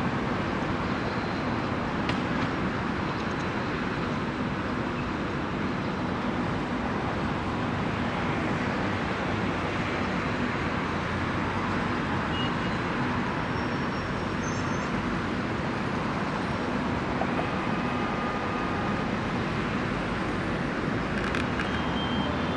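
Steady rumble of distant city road traffic, even and unbroken, with a few faint short tones over it.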